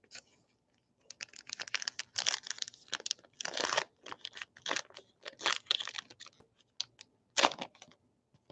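Foil-plastic trading card pack wrapper being torn open and crinkled in the hands: a run of crackling tears and rustles starting about a second in, with a sharp crackle near the end.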